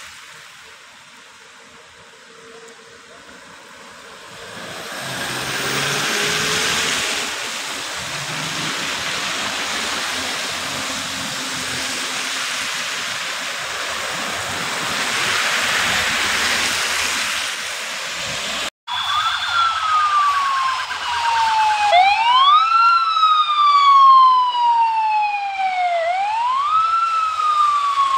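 Tyres hissing on a wet road as vehicles pass, swelling twice. After an abrupt cut comes a police escort siren: a steady tone, then a wail that rises quickly and falls slowly, repeating about every four seconds.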